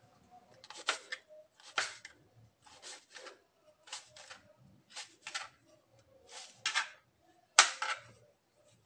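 Kitchen knife cutting small eggplants into cubes, each stroke knocking on the cutting board, about once a second and sometimes in quick pairs. The loudest chop comes near the end.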